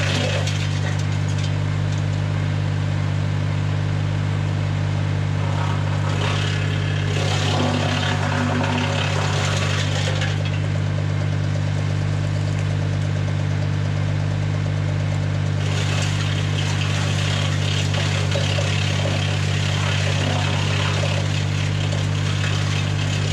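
Tractor engine running steadily at constant speed, driving a BX52 PTO-powered wood chipper, with stretches of louder, rougher noise that come and go, about six seconds in and again for most of the second half.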